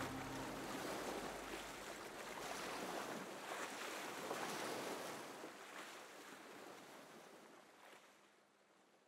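Rushing whitewater: a faint, steady roar of water that fades out near the end.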